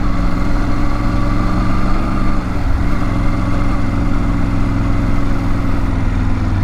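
Triumph Tiger 900 GT Pro's three-cylinder engine running steadily at a low, even road speed of about 20, a smooth unchanging drone.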